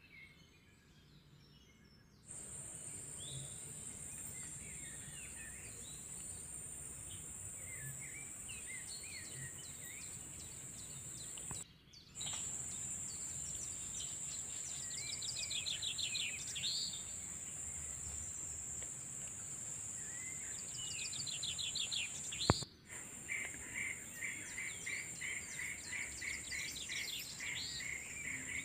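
Tropical forest ambience: a steady high-pitched insect drone under scattered bird chirps and calls. Over the last few seconds a bird repeats a short note several times a second. A single sharp click sounds about three-quarters of the way through.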